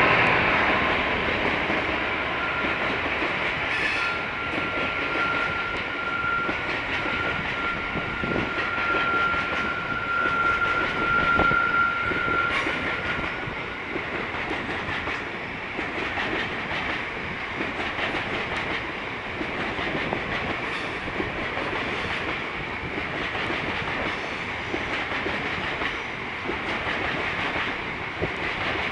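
Train of coal hopper wagons rolling past steadily, wheels clattering over the rail joints of a junction. A thin, steady high whine runs for about ten seconds in the first half.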